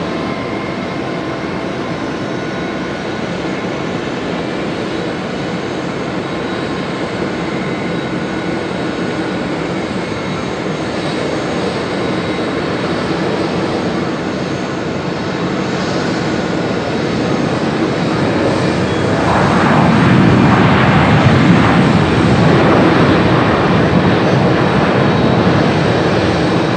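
Boeing 787-8 Dreamliner's Rolls-Royce Trent 1000 jet engines landing: a steady jet hum with a faint whine that slowly grows louder on approach. About two-thirds of the way through, after touchdown, it swells suddenly into a much louder rush, typical of reverse thrust on the landing roll.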